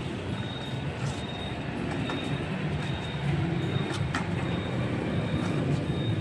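Hard plastic wheels of a small child's ride-on toy rolling over rough concrete as it is pushed along: a steady rumble with scattered clicks and knocks.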